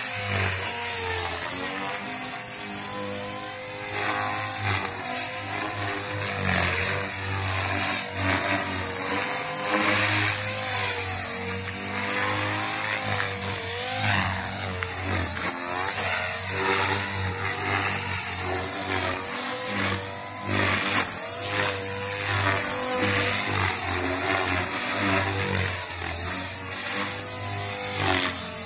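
Blade 450X electric RC helicopter's brushless motor and rotor blades whining, the pitch wavering up and down as it flies aerobatic manoeuvres.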